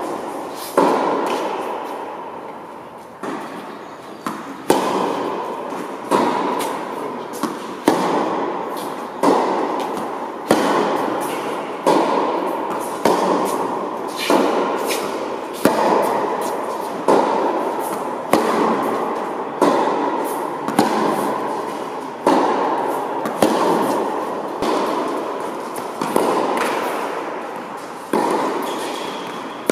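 Tennis rally: a ball struck by racket back and forth about every one and a half seconds, each hit ringing out with a long echo in a large indoor tennis hall.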